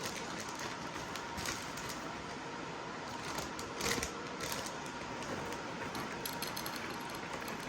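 Scattered light clicks and clatter of handling in the kitchen, a utensil against a container, over a steady hiss, as onion is added to the salad bowl.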